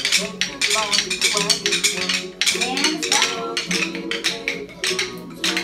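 Many wooden rhythm sticks being tapped together by small children, a ragged clatter of clicks several times a second, over music with a steady beat.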